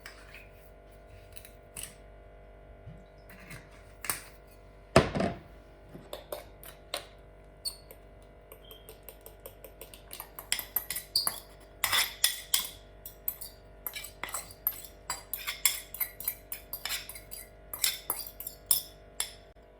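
Dishes and cutlery clinking and clattering, with one loud knock about five seconds in and a quick run of many clinks through the second half, over a steady hum.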